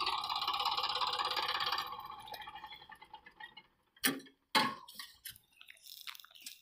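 Sonalika DI 35 RX tractor's diesel engine running with a fast, steady clatter that fades away about two seconds in. Two sharp knocks follow about four seconds in, then a few faint clicks.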